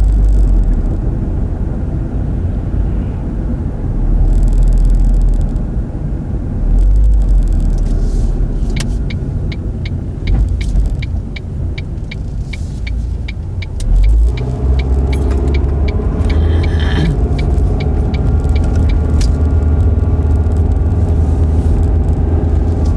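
Car cabin noise while driving: a steady road and engine rumble. In the middle, a turn-signal indicator ticks evenly, about three ticks a second, for about five seconds. Then the engine note rises as the car pulls away and turns.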